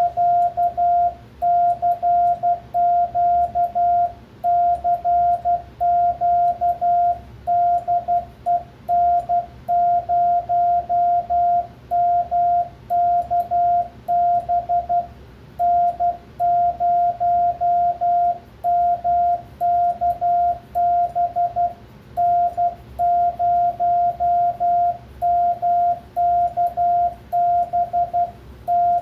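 Morse code call sent from a Bencher keyer and heard as the transceiver's CW sidetone in break-in mode: a single steady beep keyed on and off in dots and dashes. It runs in quick runs of characters with a few longer pauses between words.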